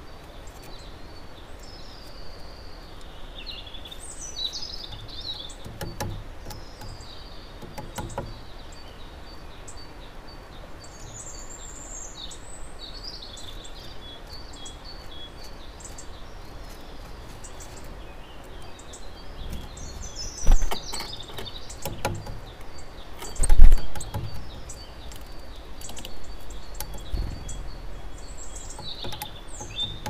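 Great spotted woodpecker pecking at a wooden stump: scattered sharp taps, with songbirds singing and calling in the background. Two loud thumps, about 20 and 23 seconds in, the second the loudest.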